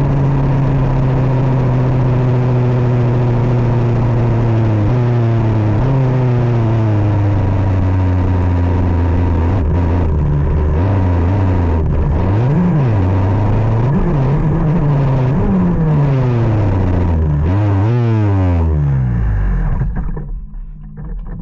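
KZ 125 shifter kart's single-cylinder two-stroke engine running hard at high revs with a few drops in pitch, then revving up and down repeatedly for several seconds. Near the end the revs and level fall away to a low, quieter running.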